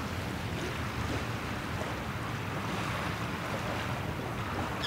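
Steady wind and water washing along a river shore, an even rushing noise with no distinct events.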